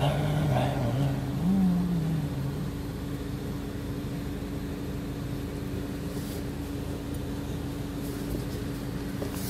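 Car idling, heard from inside the cabin: a steady low hum with a constant tone running under it.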